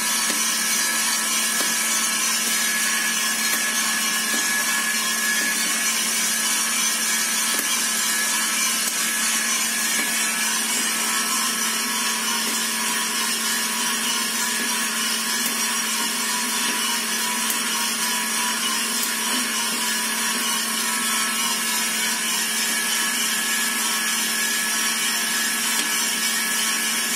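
Kaldi Wide drum coffee roaster running with a steady motor hum as its drum turns. A few faint, sharp pops come through it now and then: the beans reaching first crack, the stage at which the coffee becomes drinkable as a light roast.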